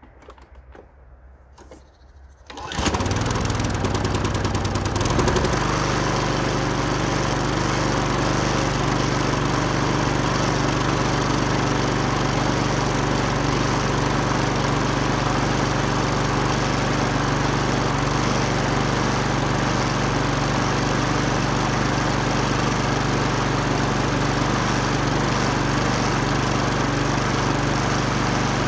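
A Wolf TB46B lawn mower's four-stroke engine starts about three seconds in, wavers for a couple of seconds, then settles into a steady run. It is now running on fuel from its own tank through the refitted carburettor.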